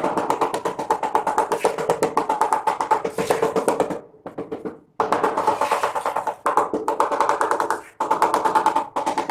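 Music with a fast, even percussive beat over a steady tone. It cuts in abruptly and drops out briefly about four and eight seconds in.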